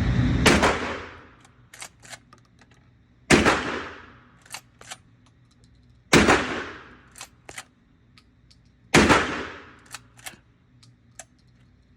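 Four 12-gauge shotgun shots from a Benelli Super Nova pump-action, fired with slugs about three seconds apart. Each shot is followed by a few sharp clacks as the pump is worked to eject the hull and chamber the next round.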